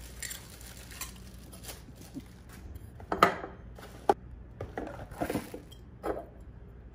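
Faint rustling of plastic wrap, then the parts of a stainless steel cobbler shaker clinking and knocking against each other and the wooden tabletop. There are several sharp clinks from about three seconds in, the loudest first.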